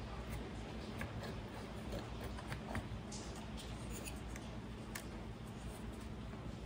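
Faint clicks and light scraping of hands fitting small plastic and metal carburetor parts on a chainsaw, over a low steady hum.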